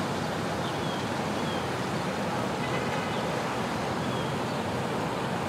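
Steady outdoor background noise, an even rushing wash like wind or distant traffic, with a few faint, short high chirps scattered through it.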